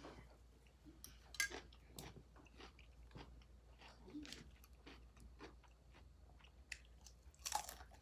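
Close-up chewing of food: soft mouth clicks and bites, with a louder crunch near the end.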